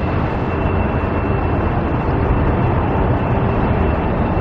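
Steady, loud rumble of road traffic, with a thin steady high whine over it.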